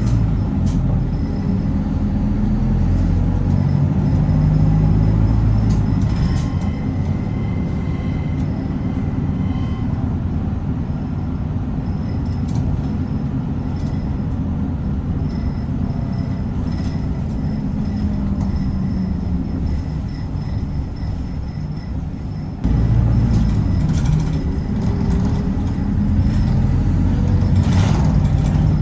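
Inside a moving city bus: the engine and road noise run steadily, with the engine note rising and falling as the bus speeds up and slows, and scattered rattles. The sound becomes abruptly louder about three quarters of the way through.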